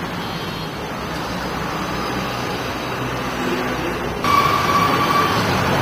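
Street traffic noise: a steady rumble of passing vehicles. About four seconds in it grows louder, with a held high tone lasting about a second.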